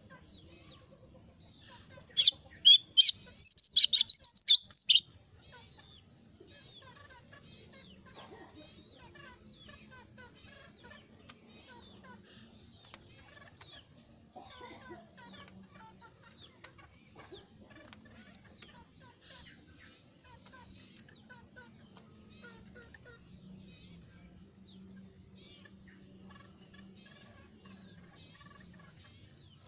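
Jongkangan bird calling: a loud run of about ten quick, sharp chirps a couple of seconds in, then only faint scattered chirps. The bird is molting, and its voice is hoarse and cannot sing in full.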